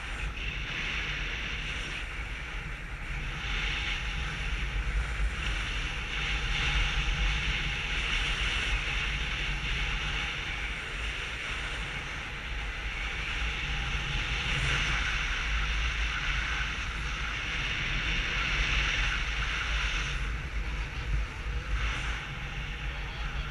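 Wind buffeting a GoPro's microphone in paragliding flight: a steady low rumble with hiss, swelling and easing in strength.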